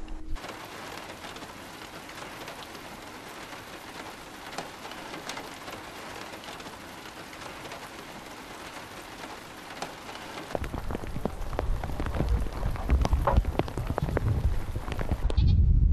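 Steady rain falling and dripping. A low rumble with scattered knocks builds up over the last five seconds.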